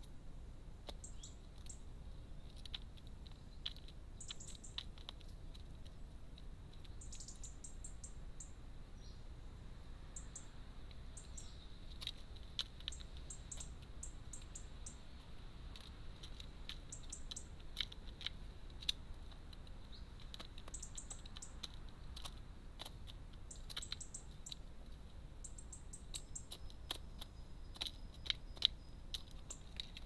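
Crows pecking food out of a plastic feeder dish: scattered sharp beak taps and clicks, the loudest near the end. Short bursts of high chirps from small birds come in again and again.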